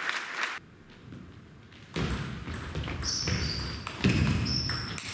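Table tennis play: ball strikes and players' feet moving on the sports-hall floor, with low thumps and brief high squeaks. A short quiet spell comes just after the start, then the sounds pick up again from about two seconds in.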